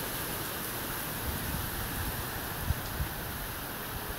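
Steady rain falling, an even hiss, with a few brief low bumps about halfway through.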